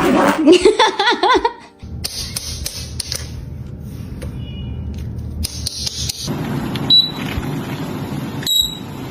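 A loud, wavering, laugh-like voice for about the first second and a half, then a stretch of mixed noise with a few brief high tones.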